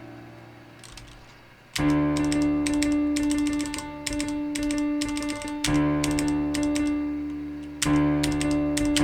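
Computer-keyboard piano: piano notes played by typing on a computer keyboard, with the clack of the keys heard along with each note. A note fades out, then new notes start just under two seconds in, with fresh loud strikes about four and six seconds later.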